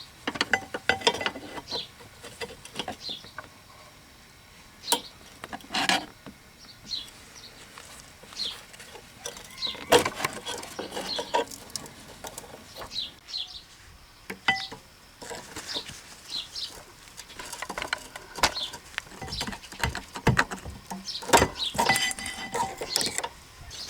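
Scattered clicks, taps and knocks of hand work at a car's rear wheel hub, as the wheel speed sensor connector is unplugged and the parking brake cable is unhooked, with birds chirping faintly in the background.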